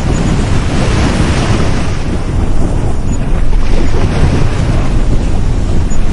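Sea waves breaking and washing up a beach, surging louder twice, with wind buffeting the microphone as a heavy low rumble.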